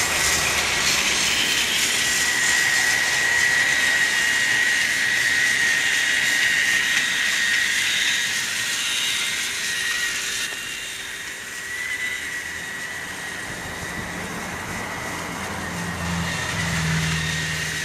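Battery-powered toy trains running on plastic track: a steady high-pitched motor whine over the running noise of the wheels. The Tomy Skarloey's drive unit is the whiny one, while the Trackmaster Rheneas runs quietly. The sound grows quieter about ten seconds in.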